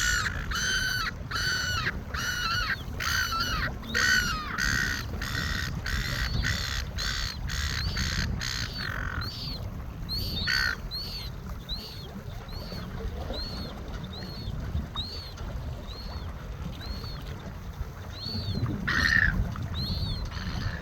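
Gulls calling: a fast run of loud, harsh calls about twice a second for the first nine seconds, then thinner, higher calls repeating steadily, with single loud calls about halfway and near the end. A low rumble sits underneath throughout.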